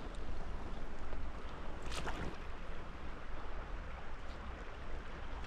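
Creek water running steadily over a shallow bed, with a single sharp click about two seconds in.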